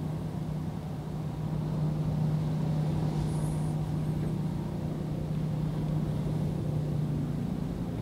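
Choppy surf breaking against a rock seawall in strong wind. A steady low hum runs underneath.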